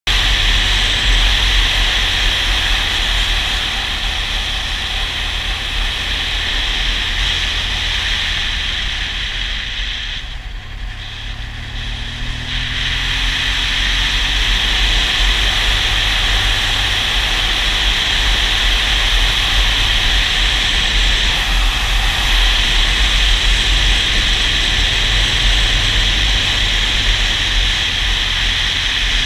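Motorcycle under way: steady wind rush on the microphone over the low rumble of the engine and road. About ten seconds in the wind noise drops away for a couple of seconds, then builds again as the engine pulls back up.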